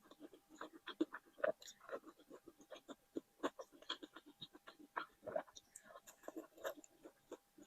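Close-miked eating: irregular chewing with wet mouth clicks and smacks, several a second.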